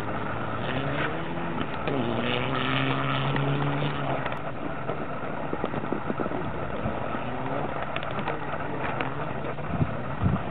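Rally car engine revving up and dropping back several times, then holding steadier, as the car slides through the snow course. Two sharp knocks sound near the end.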